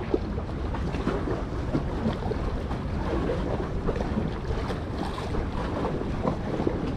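Wind buffeting the microphone over choppy sea water washing against concrete breakwater blocks, with a steady rushing noise and scattered small splashes.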